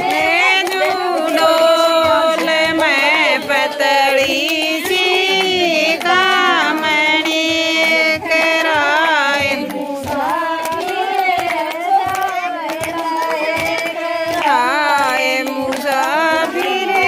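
Haryanvi folk dance song: a woman's high, wavering singing voice over a steady drum beat.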